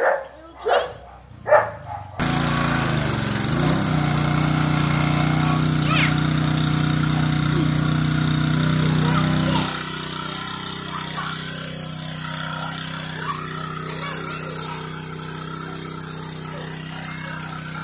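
A dog barks three times, then a pressure washer starts abruptly and runs with a steady machine hum. About ten seconds in its sound drops a little and becomes lighter.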